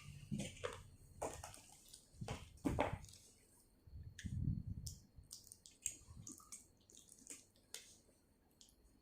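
Wet eating sounds: irregular smacks, clicks and squelches of chewing spicy seafood papaya salad, busiest in the first three seconds, with a muffled low thud a little past the middle.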